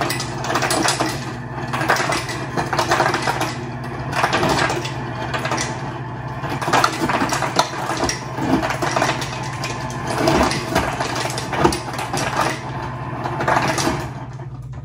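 Ice cubes clattering into a cup in a run of irregular clinks and rattles, over a steady low hum.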